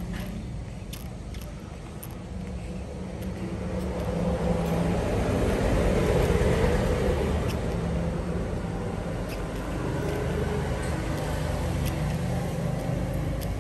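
Steady low rumble like passing road traffic, swelling to its loudest about halfway through and easing off again, with a few faint clicks.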